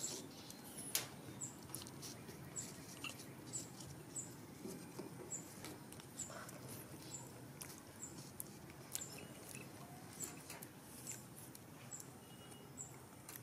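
Faint, high-pitched chirp repeating steadily about every 0.7 seconds, over scattered light clicks and taps.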